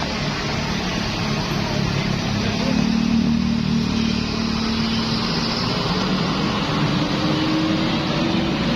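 Bus engine running close by amid traffic noise, its pitch creeping slowly upward in the last few seconds as it pulls away.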